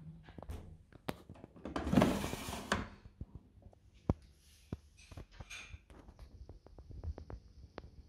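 Plastic detergent drawer of a Profilo washing machine being pulled open, a scraping slide lasting about a second, followed by scattered light clicks and taps of plastic being handled.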